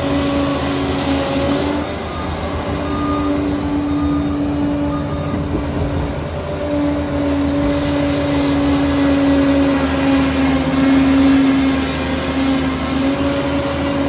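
Liebherr PR 746 crawler dozer's diesel engine running steadily under load as it pushes soil with its blade, with a steady whine that wavers slightly in pitch.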